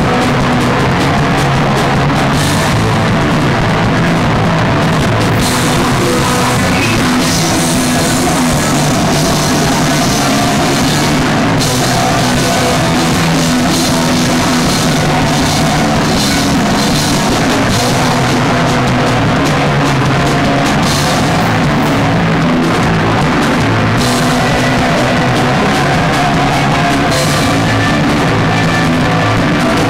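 Loud live punk band playing without a break: electric guitars and a drum kit.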